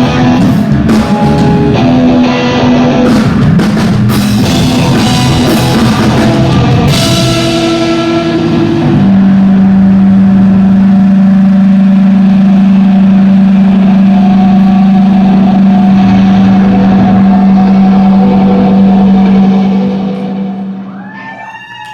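Live band playing the end of a song with drums, then holding one long loud final note that dies away near the end, as the audience starts clapping.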